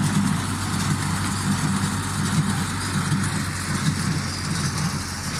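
Tractor engine running steadily with a constant low hum, working a small square baler.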